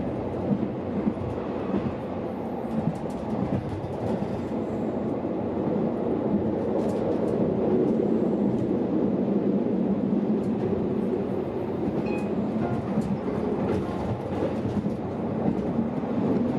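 Steady running noise of a metre-gauge regional train, heard from inside the carriage, with a few faint clicks from the track.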